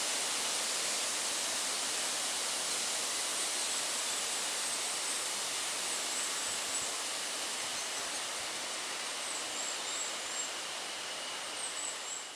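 Steady outdoor hiss with a few faint, high, brief bird chirps.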